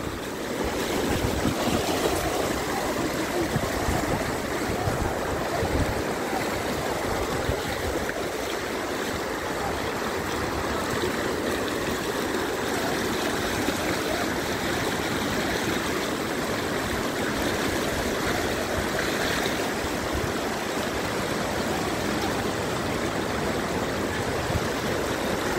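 Floodwater of a swollen river rushing steadily, a continuous even rushing noise.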